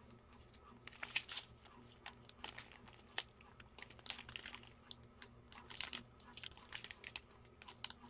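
A strip of small plastic zip bags of diamond-painting drills crinkling as it is handled, in faint, scattered crackles.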